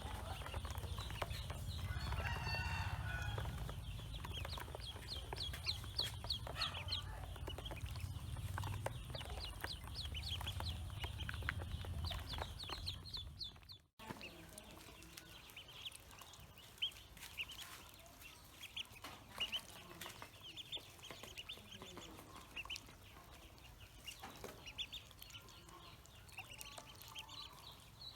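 Pekin ducklings peeping: many short, high chirps in quick succession, over a low rumble in the first half. About halfway the sound cuts, and the peeping goes on more quietly.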